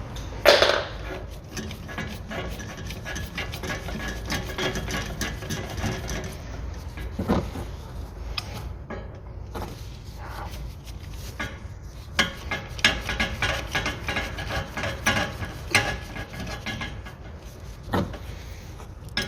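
Ratchet wrench clicking in runs, with metallic clinks and knocks, as the bolts holding a front driveshaft's inner joint to the gearbox flange are tightened.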